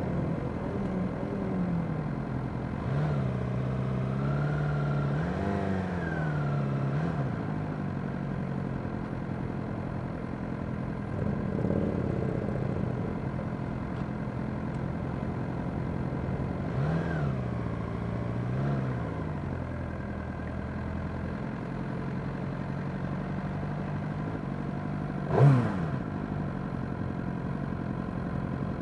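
Motorcycle engines in a slow-moving group ride, the nearest a Suzuki GSX-R600's inline-four, running steadily with the revs rising and falling twice. Near the end comes one short, loud rev blip whose pitch drops quickly.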